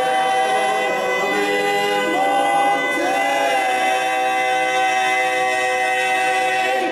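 Male barbershop quartet singing a cappella in four-part harmony, holding long sustained chords. The final chord is held for about four seconds and cut off just before the end, closing the song.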